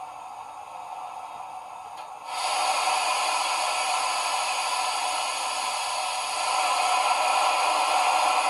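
Sound decoder of a Bachmann ROD 2-8-0 model steam locomotive, Wheeltappers DCC sound, playing a steady steam hiss while the engine stands still. The hiss starts suddenly about two seconds in, after a quieter stretch of faint hiss.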